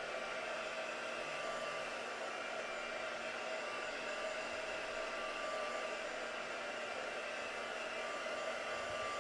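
Craft heat tool blowing steadily, drying a freshly applied layer of distress oxide ink on the card background.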